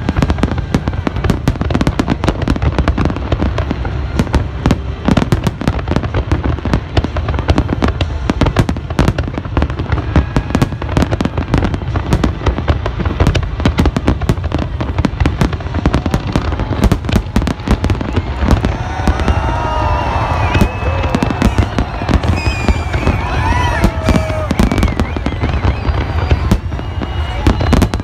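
A large fireworks display going off nonstop: many sharp bangs and crackles a second over a deep, continuous rumble. For a few seconds past the middle, wavering high tones ride over the bangs.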